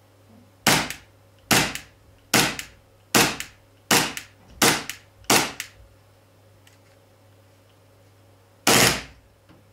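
WE Glock 26C Gen 3 green-gas blowback airsoft pistol firing, its slide cycling with each shot: seven sharp cracks a little under a second apart, then after a pause a longer blast near the end.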